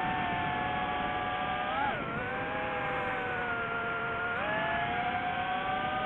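Quadcopter drone's motors and propellers whining in flight: several close tones that shift together with the throttle, wobbling briefly about two seconds in and stepping up in pitch a little past the middle. A steady hiss runs underneath.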